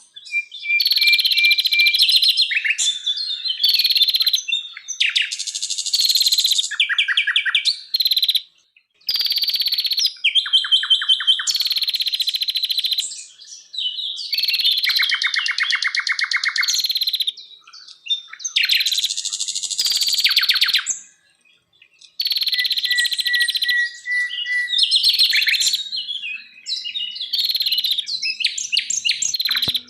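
Forest songbirds singing varied songs: fast trills, rattles of rapidly repeated notes and whistled phrases. There are short pauses about a third of the way in and again past the middle.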